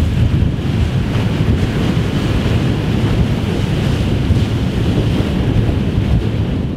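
Wind buffeting the microphone over rushing water and spray from a motorboat running at planing speed: a steady, loud low rumble with no distinct engine note.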